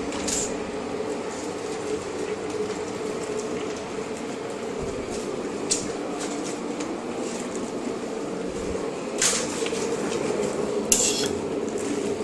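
Steady bubbling and hiss of pots cooking on the stove, with two brief clatters of kitchenware about nine and eleven seconds in.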